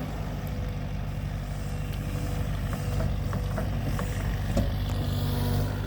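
Excavator engine running steadily, with a few faint clicks about halfway through.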